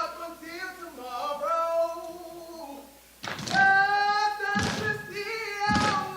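Step team voices singing a chant in sliding, held notes, then from about three seconds in, heavy unison stomps land roughly every second and a quarter while the voices hold notes between them.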